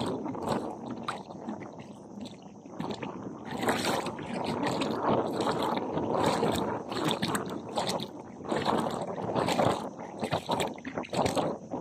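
Water splashing and sloshing in uneven strokes as feet wade through shallow seawater over a sandy bottom.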